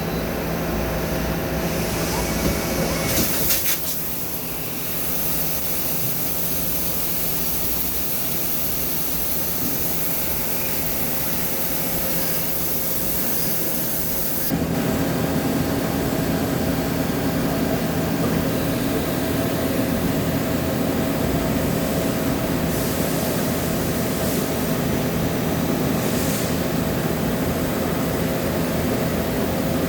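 Machine tool running steadily while cutting beryllium copper, with a constant hum and hiss. Its sound changes a few seconds in and again about halfway, when it gets louder.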